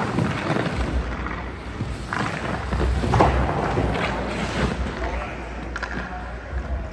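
Hockey goalie's skate blades scraping across the ice, with his leg pads sliding and knocking on the ice as he moves across the crease and gets back up; the sharpest scrape comes about three seconds in. A steady low rumble runs underneath.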